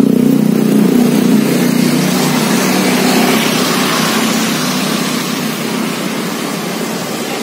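Road traffic: a vehicle engine hum that slowly fades, with a rushing noise that swells in the middle as traffic passes.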